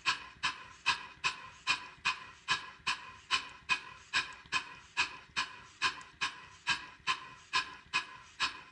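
Model steam engine running, its exhaust chuffing in an even beat of about two and a half puffs a second, each a sharp hiss that dies away before the next.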